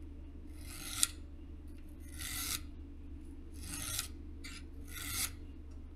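Piston ring end being filed to open up its end gap, four slow rasping strokes about a second and a half apart. The gap measured too tight at 0.3 mm, so metal is being taken off the ring end.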